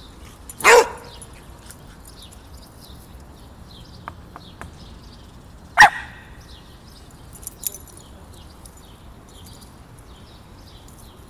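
Small dogs at play, with two sharp barks: one about a second in and a louder, shorter one just before the middle.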